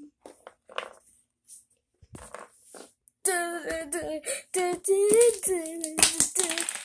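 A few short soft knocks and rustles, then, about three seconds in, a voice starts singing a wordless tune in held notes that bend up and down.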